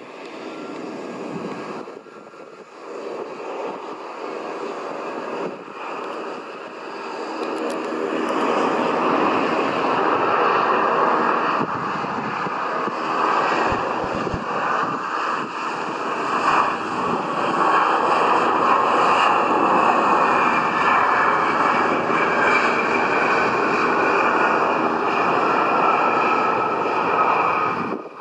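Turbofan engines of an Embraer 175 airliner landing. The engine noise grows louder over the first eight seconds as the jet comes close, then stays loud through touchdown and rollout, with a whine that slowly falls in pitch over the last ten seconds.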